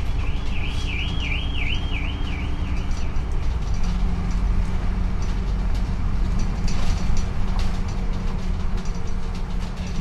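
Engine rumble and road noise inside a moving London double-decker bus, with loose rattles from the bodywork. For the first three seconds a high warbling tone wavers quickly up and down, and about four seconds in a steady low engine hum sets in.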